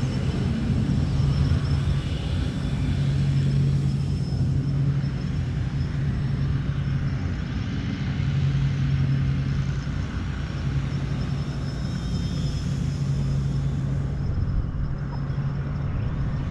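Pixhawk-controlled quadcopter's motors and propellers humming steadily in flight, the hum swelling and easing a little, over a heavy low rumble.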